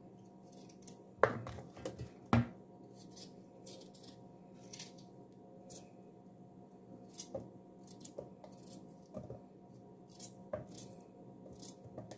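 Kitchen knife slicing a peeled potato into cubes held in the hand, a string of short crisp cutting strokes, with two louder knocks about a second and two seconds in.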